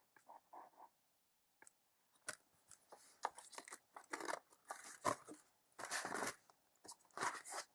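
Handling of a Blu-ray case and its packaging: a string of short, irregular rustles, scrapes and clicks, coming thicker from about two seconds in.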